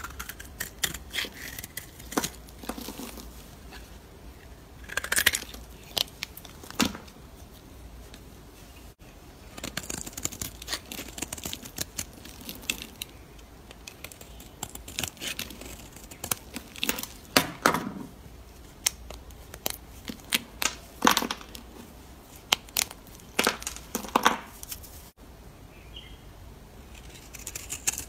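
Snap-off utility knife blade cutting and shaving hard bar soap: a series of crisp, crackling cuts and scrapes as curls and flakes break off, some sharp and loud, with short pauses between strokes.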